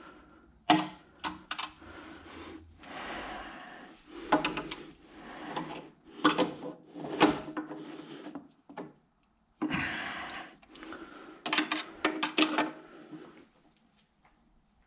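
Irregular knocks, clicks and rattles of hard objects being handled, with patches of rustling in between and a brief pause a little after the middle.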